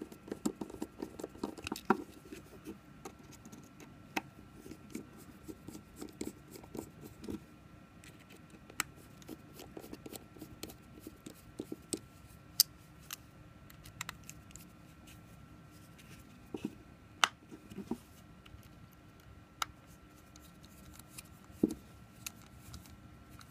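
Irregular small clicks and scrapes of an iFixit precision screwdriver with a Torx T5 bit driving tiny screws into the back of a Pebble smartwatch's plastic case, with fingers handling the watch.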